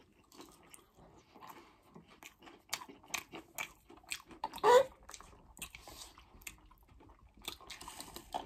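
Close-miked chewing and crunching of McDonald's food, with many small sharp mouth clicks and crunches. About halfway through there is one louder, brief sound that rises in pitch.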